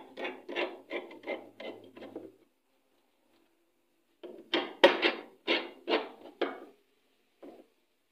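Quick repeated knocking and scraping strokes as a cover is worked into place on a single-tub washing machine: a run of fast strokes, a pause of about two seconds, then a slower run of louder strokes and one last knock.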